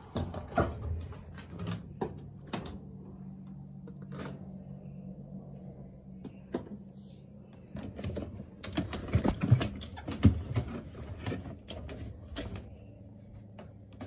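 Irregular knocks, clicks and rustling as washed laundry and plastic parts are handled inside a top-loading washing machine's tub, busiest in the second half, over a steady low hum.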